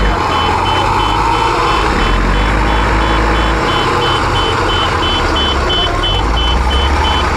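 A backup alarm beeping steadily, about two high two-tone beeps a second, over the low running of a heavy vehicle's engine, whose rumble swells and eases.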